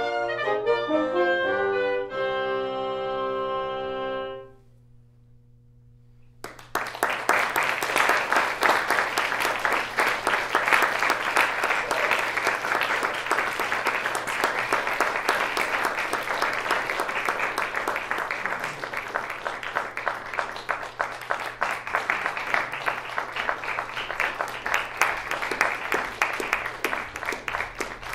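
A woodwind quintet (flute, oboe, clarinet, French horn and bassoon) plays its closing bars and holds a final chord, which stops about four seconds in. After a short quiet, an audience applauds for the rest.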